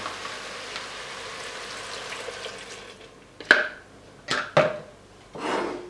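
Vegetable broth poured into a hot stainless steel pot of frying mince and vegetables, hissing and sizzling steadily for about three seconds. Then a few sharp knocks of a spatula against the pot as the mixture is stirred.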